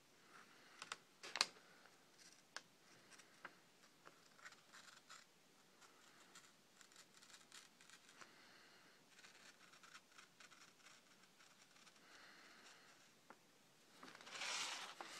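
A sharp knife edge shaving fine curls off the edge of a sheet of paper: faint, scattered scratches and ticks, with one sharper click about a second and a half in. Near the end the paper rustles as the sheet is moved.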